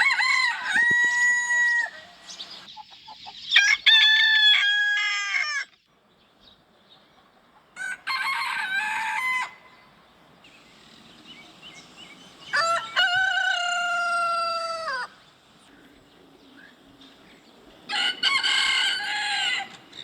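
Rooster crowing, five full cock-a-doodle-doo calls, each about two seconds long and a few seconds apart.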